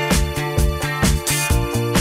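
Instrumental background music with a steady beat of about four strokes a second over a bass line.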